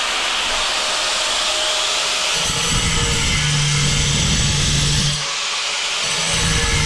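Angle grinder running as it cuts a hole in a hard ceramic tile, a steady hiss with a deeper hum that comes in about two and a half seconds in, drops out briefly and returns.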